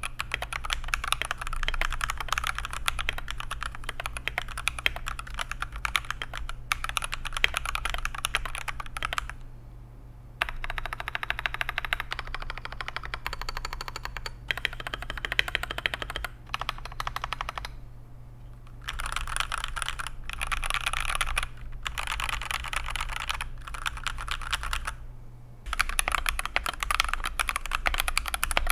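Fast typing on a mechanical keyboard fitted with Akko switches: a dense run of key clicks and bottom-outs, in several stretches of slightly different tone as the test moves between switches, with brief pauses about 10, 18 and 25 seconds in.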